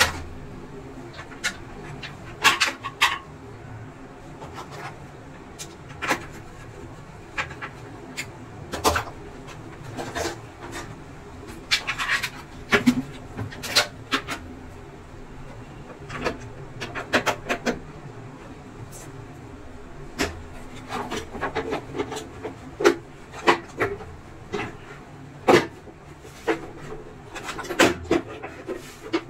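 Scattered clicks, knocks and rubbing of plastic parts and wiring as a Prestige induction cooktop is handled and reassembled. Near the end the glass-topped cover is fitted onto the base.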